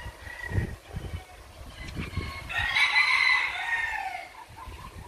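A rooster crows once about halfway through, a call of about a second and a half that falls at the end. A few low bumps come before it.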